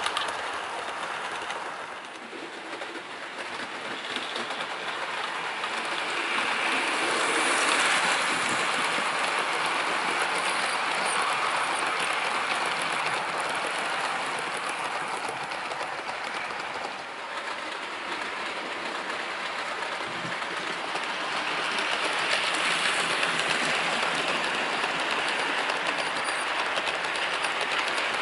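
OO gauge model train running on layout track: a steady rolling rush of wheels on rail and the running gear. It grows louder about eight seconds in and again after about twenty-two seconds, with brief dips between.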